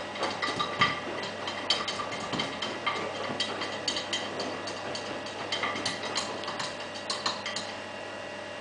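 Irregular clicking and tapping as a cat paws and scrabbles inside the open drum of a front-loading washing machine. The clicks stop about seven and a half seconds in, leaving a steady hum.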